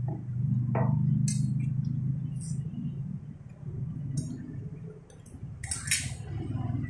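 A spoon clinking against metal dinner plates several times, short sharp chinks, over a steady low hum.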